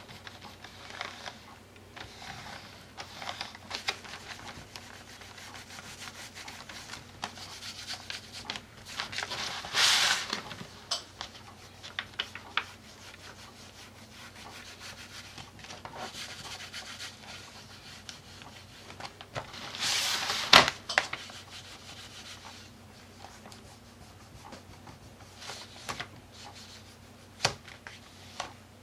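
Faber-Castell Gelatos water-soluble crayon rubbed on a paper journal page: irregular scratchy strokes, with louder rasping spells about ten and twenty seconds in and a few light taps.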